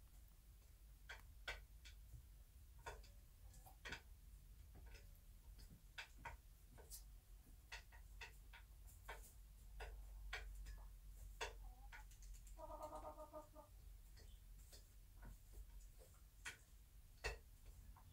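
Near silence with faint, scattered soft clicks. About thirteen seconds in, a bantam hen gives one short, low trilling call lasting about a second.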